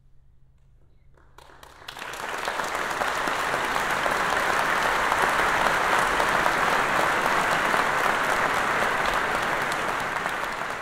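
Audience applauding: the clapping breaks out about a second and a half in and quickly swells to a dense, steady ovation.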